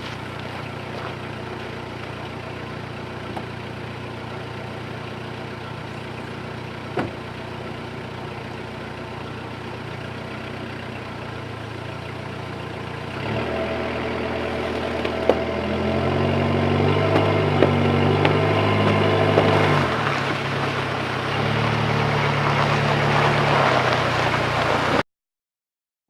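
A vehicle engine idling steadily. About halfway through it runs louder with its pitch rising and falling as it is driven, then cuts off suddenly near the end.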